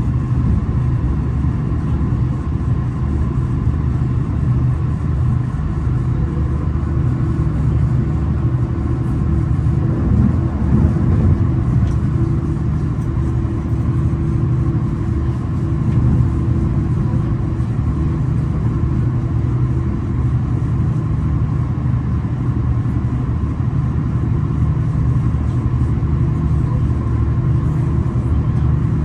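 V/Line regional passenger train running along the line, heard from inside the carriage: a steady low rumble with a few constant hum tones, swelling slightly around ten to twelve seconds in.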